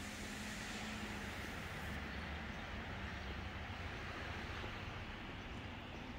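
Steady vehicle noise of a town street, with a low steady hum that stops about a second in.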